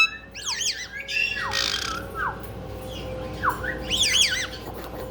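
Caique parrots squawking: short wavering shrill calls, loudest right at the start and again about four seconds in, with a few lower swooping calls in between.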